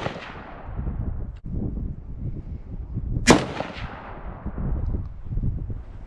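A single gunshot a little past halfway, a sharp crack with an echo trailing off over about a second. It opens on the fading tail of a shot fired just before.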